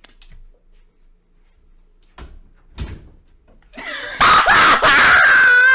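A couple of faint knocks, then a very loud, drawn-out scream by a person, starting about four seconds in and lasting to the end.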